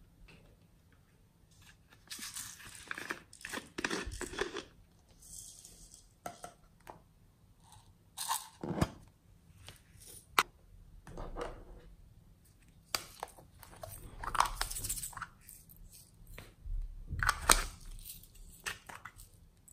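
Soft modelling clay and glossy slime being handled close up: sticky crackling and tearing as the clay is pulled apart and pressed into the slime. It comes in several separate bursts, the loudest near the end.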